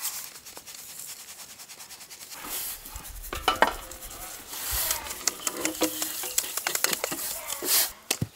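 Round steel flour sieves shaken over metal basins to sift ragi flour. The first two seconds are a fast, even run of rasping strokes. After that come scattered clinks and knocks of the sieve rims against the basins, with short metallic rings.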